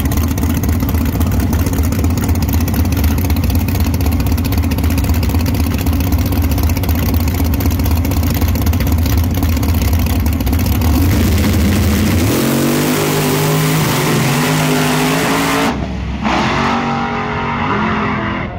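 Drag-race cars' engines running loud and steady at the start line. About eleven seconds in they launch, and the engine note rises in steps as the cars accelerate away down the strip. The sound changes abruptly near the end to a fainter, more distant engine sound.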